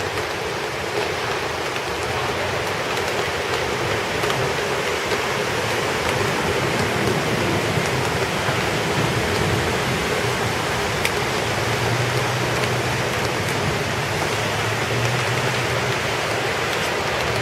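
Heavy rain falling steadily, mixed with the rush of running water. A low hum joins in for a few seconds in the second half.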